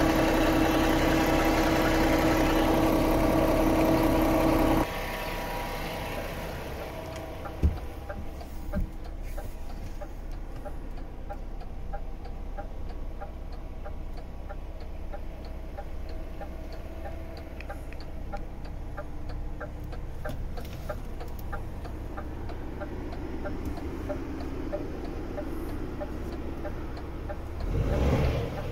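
DAF XF 460 truck's diesel engine idling. It is loud and steady at first, heard at the front of the truck, then duller and quieter from about five seconds in, heard from inside the cab. A sharp thump comes near eight seconds, a light regular ticking is heard in the middle, and near the end the engine starts to rev.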